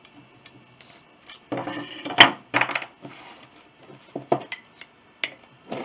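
Small wooden pieces of a piano side piece knocking and clacking against each other and the workbench as they are handled, with a cluster of hits about two seconds in, then the glass jar of hide glue being handled and opened, with a few sharp knocks near the end.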